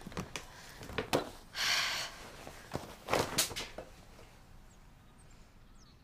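Hard-shell suitcase being opened: a few sharp clicks as the latches are worked and the lid is lifted, then cloth swishing and rustling as clothes are handled into the case, tailing off quieter near the end.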